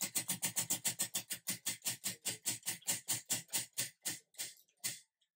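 Spinning prize wheel's pointer clicking over the pegs around its rim: rapid clicks at first that slow steadily and spread out as the wheel runs down, stopping near the end.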